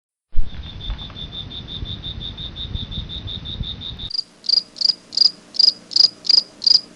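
Cricket chirping sound effects that start abruptly from silence. First comes a fast, even chirp about seven times a second over a low rumble. About four seconds in, it cuts to a different, louder and higher chirp about three times a second.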